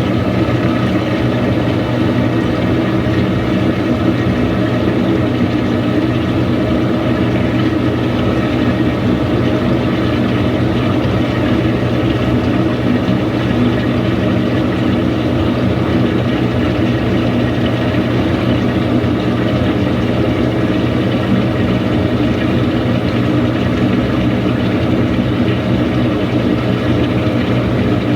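Samsung washing machine running a deep-fill wash: a steady low hum under an even wash of noise, unbroken and unchanging.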